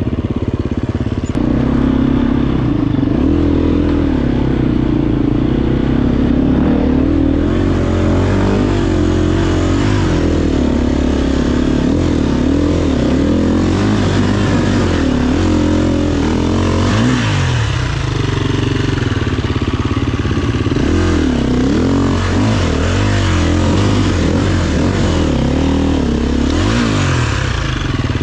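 Husqvarna FE 350 single-cylinder four-stroke enduro bike running on a dirt trail, heard close from the bike itself, its engine pitch rising and falling as the throttle is worked over rough ground.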